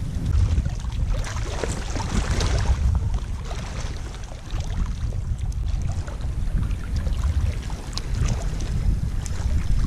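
Wind buffeting the microphone: an uneven low rumble with a fainter rushing hiss over it.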